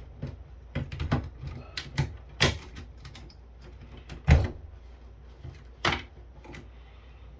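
Irregular clicks and knocks from a rack-mount KVM switch's parts and cables being handled during a teardown, with one louder thump a little past the middle.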